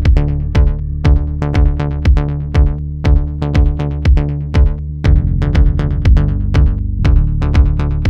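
Electronic background music with a steady drum-machine beat over a sustained bass line.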